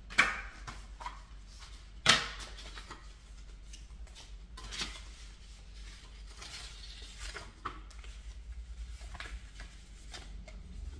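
A music album being unpacked by hand: two sharp knocks about a fraction of a second and two seconds in, then scattered light clicks and rustling of its card and paper parts as it is opened and searched for photo cards.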